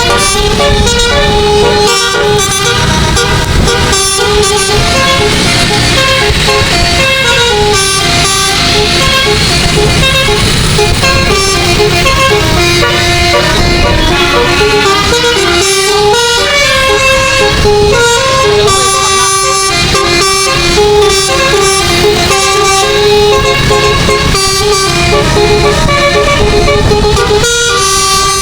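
Twelve-note Basuri musical air horn on a bus, a 'telolet' horn, playing a quick melody of short stepping notes without a break, over steady low vehicle noise.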